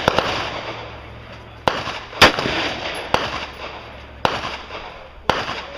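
Gunshots at a shooting range: about five or six single shots at uneven spacing, roughly a second apart, each followed by an echoing tail, the loudest a little over two seconds in.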